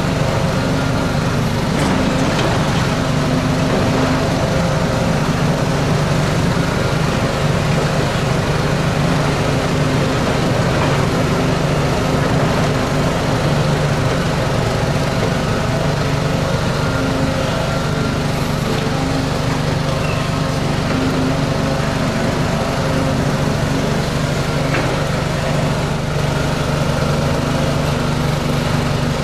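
Volvo tracked excavator's diesel engine running steadily at a constant pitch, with an occasional faint knock.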